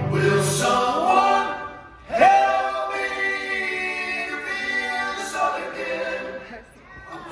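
Male vocal group singing a slow song in close harmony with no instruments, heard through a concert hall's sound system. A phrase fades about two seconds in, the next comes in at once on a full chord, and it falls away again near the end.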